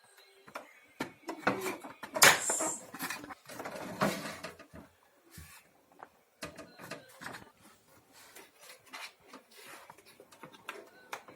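Irregular plastic clicks and knocks as the vacuum cleaner is handled, with a louder clatter about two seconds in. The motor is not running.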